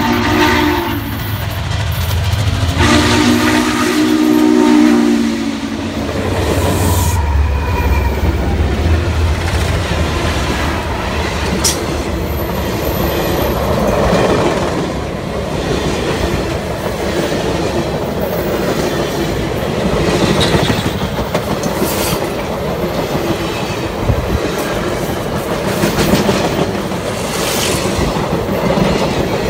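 Norfolk & Western 611, a 4-8-4 steam locomotive, blowing its chime whistle as it passes close by: one blast ending about a second in, then a longer one of about three seconds, over the heavy rumble of the engine. After that a long string of passenger cars rolls past, the wheels clicking over the rail joints.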